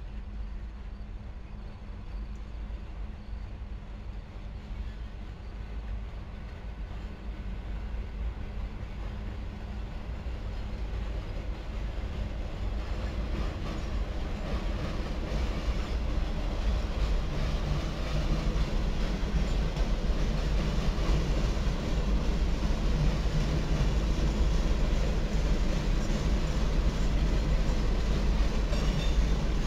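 A train approaching, its low rumble and rolling wheel noise growing steadily louder through the first two thirds and then staying loud.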